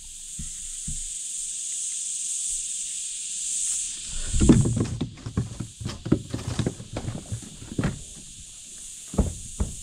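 A steady high-pitched hiss throughout, with a dense run of knocks and clatters from about four seconds in and two more thumps near the end: fishing gear being rummaged through and handled in a kayak.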